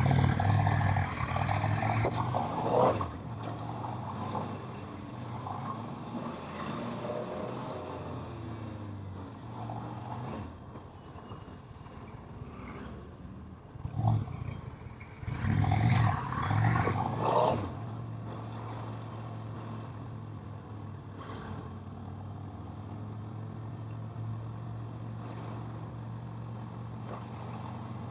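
Kawasaki motorcycle engine running on the move, with a rush of noise over the microphone. It gets louder in two spells, one near the start and one a little past halfway, then settles to a steady hum for the last ten seconds or so.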